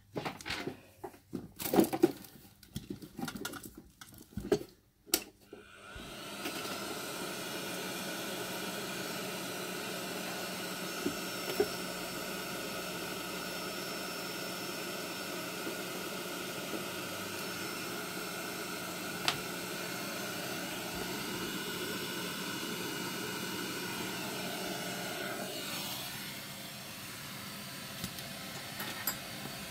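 Clicks and knocks of the smart plug's plastic parts and circuit board being handled. About six seconds in, a hot-air rework gun's blower starts and runs as a steady hiss with a faint whine. Near the end it drops a little in level and shifts in tone.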